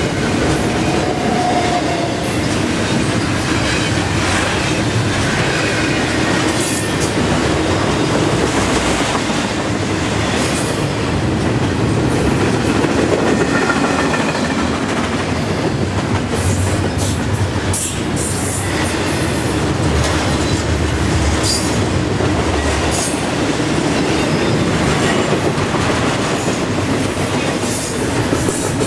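Freight train of intermodal well cars rolling past at speed: steady wheel and rail noise with clacking over the rail joints and a few short squeals of wheel flanges on the rail.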